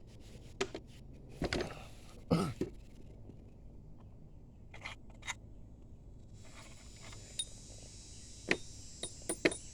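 Scattered metallic clinks and knocks of hand tools and bolts as the alternator bracket is unbolted from a 5.7 Vortec V8, with the loudest knocks about one and a half and two and a half seconds in. A faint steady high hiss comes in about six and a half seconds in.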